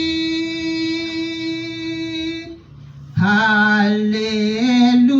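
Singing of a worship song: a long held note that fades out about two and a half seconds in, then after a brief pause the singing starts again on a new line.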